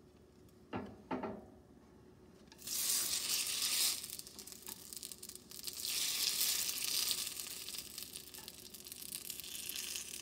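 Rice paper frying in hot oil in a nonstick pan, sizzling with a fine crackle as it puffs up. The sizzle starts suddenly about two and a half seconds in, is loudest at first, flares again around six seconds, and then eases off.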